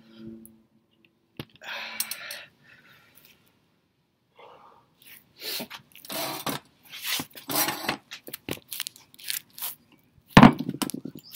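Handling noise from a camera being moved and repositioned: irregular scraping and rustling, with a loud bump about ten seconds in.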